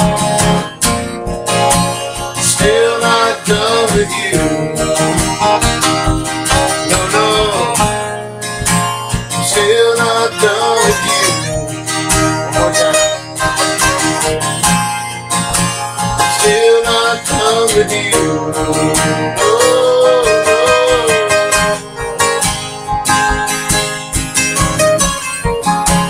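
Acoustic string band playing an instrumental passage: strummed acoustic guitar under a wavering melodic lead line.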